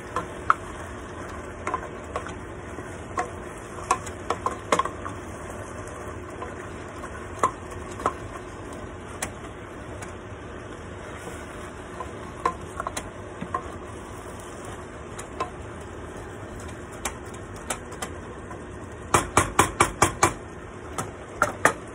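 Wooden spoon stirring ground meat and diced vegetables in a pot over a steady sizzle, with scattered knocks and scrapes against the pot. Near the end there is a quick run of about six knocks in a row.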